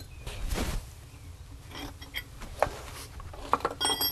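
Hand tools being handled on a concrete floor: scattered scrapes and small knocks, with a short metallic clink near the end.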